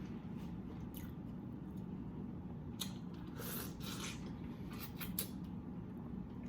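Close-miked eating sounds: wet mouth smacks and short clicks from chewing barbecue-sauced seafood, scattered irregularly over a low steady hum.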